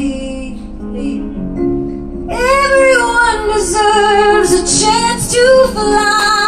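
A woman belting a pop ballad live into a microphone, with piano accompaniment. It is quieter for about the first two seconds, then the voice comes in loud with sliding, held notes.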